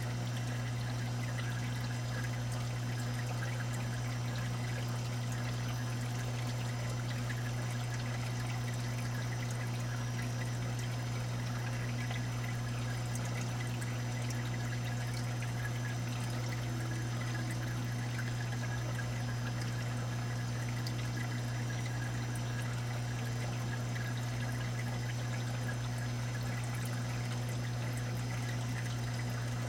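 Steady trickling, pouring water circulating through a saltwater aquarium's refugium and sump, over a steady low hum.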